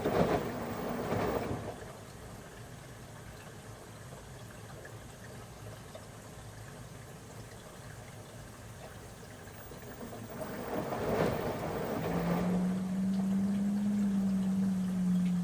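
Washing machine in its wash cycle: water sloshing as the drum turns, with a steady low motor hum. The hum cuts out about a second in, leaving a quieter rumble, then water swells again and the hum comes back about twelve seconds in.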